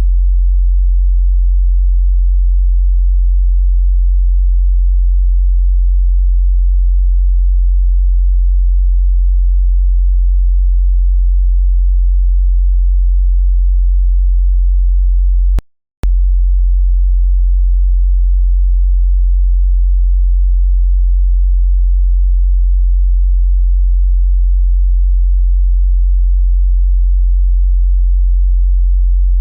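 Steady 45 Hz sine-wave bass test tone. It drops out for about half a second near the middle, with a click as it stops and as it restarts.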